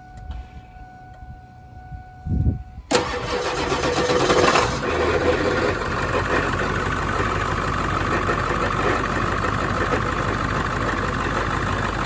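A 1999 Ford F-250's 7.3-litre Power Stroke turbo-diesel V8 cranks briefly and catches about three seconds in, running loudest for a second or two before settling into a steady idle. The engine, whose battery is dead, starts off a boosted lithium jump-starter pack.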